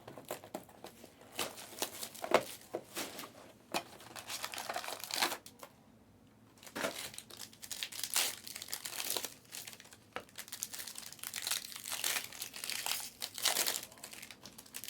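Trading-card pack wrappers crinkling and being torn open, with irregular rustling and crackling and a brief lull about halfway through.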